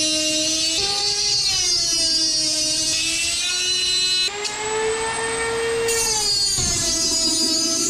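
Dremel rotary tool with a thin metal cut-off wheel cutting a slot in the wing spar, a high whine whose pitch sags and recovers as the wheel bites into the metal. About four seconds in the sound turns hissier and a little higher for a couple of seconds, and near the end it drops lower and rougher under load.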